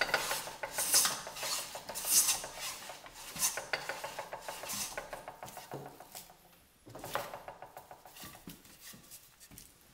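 Wooden side bead molding plane cutting a quarter-inch bead along a board's edge in quick repeated strokes, each a short scraping hiss as the iron takes a shaving. The strokes die away about six seconds in, followed by one more stroke and faint taps and handling noise.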